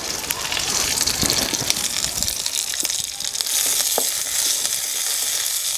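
Green chillies, curry leaves, coriander and tamarind sizzling steadily as they fry in a little oil in a pot. A few sharp clicks of a spoon come through as the mix is stirred.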